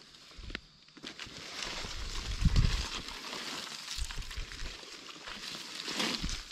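Rustling and crackling of forest undergrowth as someone moves through it, with a low thump about two and a half seconds in.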